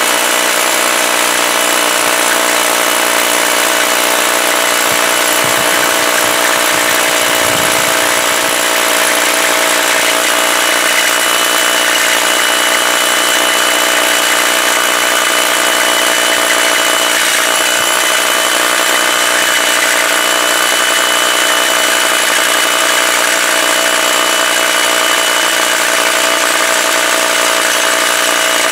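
Corded hammer drill with a carbide bit boring a hole into granite, running steadily without a break. The hole is for feathers and wedges to split the stone.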